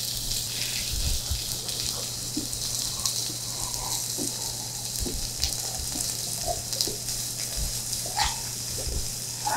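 Pork belly and garlic sizzling on a hot grill plate, a steady hiss, with a few faint gulps as a glass of cola is drunk.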